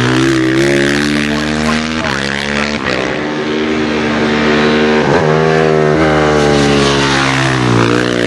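Racing motorcycle engines accelerating hard at high revs, the pitch climbing and dropping back several times as the riders change up through the gears.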